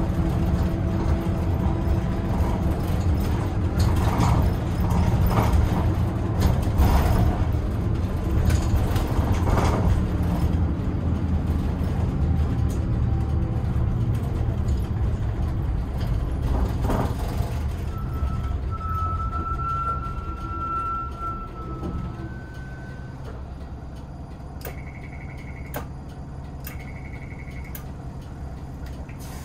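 Interior of a Hino Rainbow II bus with an automatic transmission, with its engine and road noise running while it drives. The noise drops off after about two thirds of the way through as the bus slows. A high steady tone lasts a few seconds past the middle, and two short high beeps come near the end.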